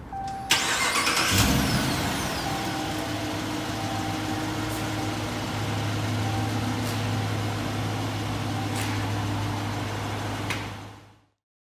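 A car engine starting, with a sudden burst of sound about half a second in and the engine catching a moment later. It then settles into a steady low idle hum and fades out near the end.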